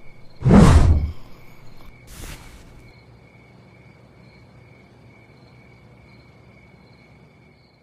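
Cricket chirping ambience, steady and pulsing, interrupted by a loud sudden burst of noise with a heavy low end about half a second in and a fainter, hissier burst around two seconds in.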